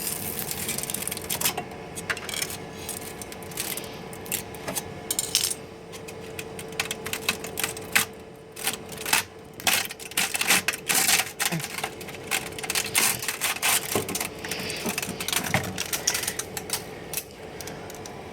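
Irregular hard plastic clicks, taps and cracks as a freshly 3D-printed plastic mask is handled and worked loose, over a steady faint hum that fades out about fourteen seconds in.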